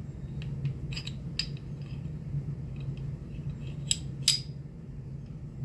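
Metal clicks and clinks of a Stoeger STR-9S pistol's barrel being fitted back into its slide: a few light clicks, then two sharper ones about four seconds in, half a second apart.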